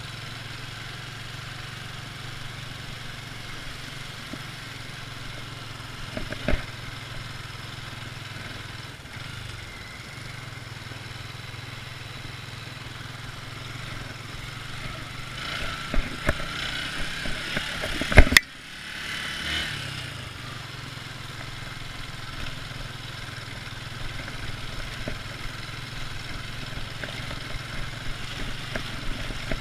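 Motorcycle engine running steadily at idle, with a sharp knock about eighteen seconds in.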